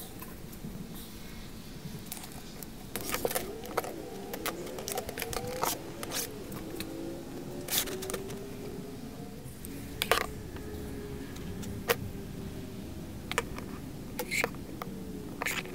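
Metal brake line being handled on a metal workbench: clinks, taps and scraping, with the tubing ringing as it slides, starting about three seconds in.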